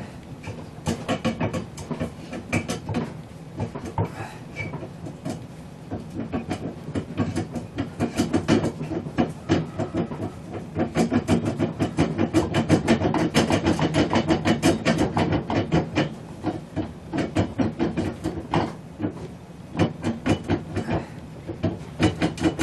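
Rapid, repeated rattling and clicking of a stuck stator cover on an LG washing machine's drive motor as it is wiggled back and forth by hand to work it off. The rattling grows busier and louder in the middle.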